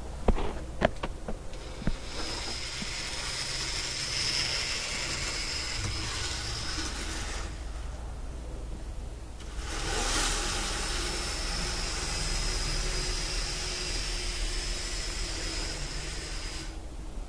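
An N gauge model Class 66 diesel locomotive running along the track with a train of hoppers: a steady high motor whine and wheel hiss that drops away for about two seconds in the middle and then returns. A few sharp knocks sound in the first two seconds.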